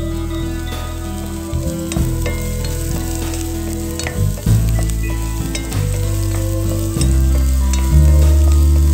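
Chopped onion and garlic frying in oil in a pan, a steady sizzle with fine crackles. Background music with held low notes plays underneath.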